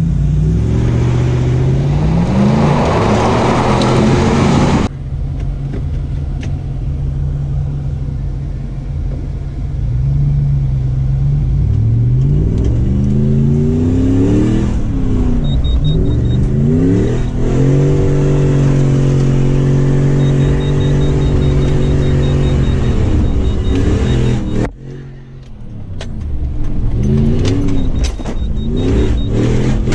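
2005 Toyota 4Runner's 4.7-litre V8 engine revving hard in loose sand, its pitch climbing and falling again and again with the throttle. For the first five seconds a loud rushing hiss of the front tyre churning sand covers it. About 25 seconds in the throttle lifts briefly and the engine drops away before revving up again.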